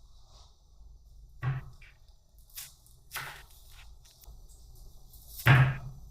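A few separate knocks and thumps, the loudest near the end.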